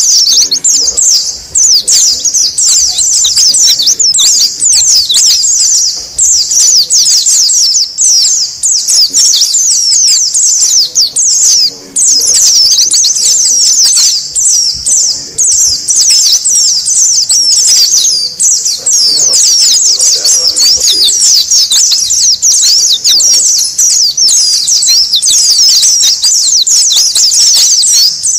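A flock of white-eyes (pleci) chirping noisily and without pause, many quick high-pitched calls overlapping one another. This is a colony lure call of the kind played to attract wild white-eyes.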